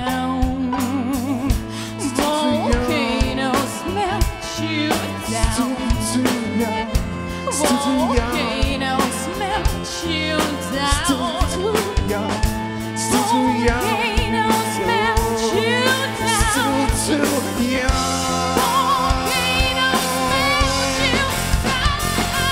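Live band playing a song: a woman singing over violin, acoustic and electric guitars, keyboard and drum kit.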